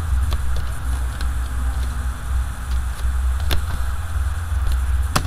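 Steady low background rumble, with a couple of sharp clicks from a computer keyboard being typed on, the clearest about three and a half seconds in and near the end.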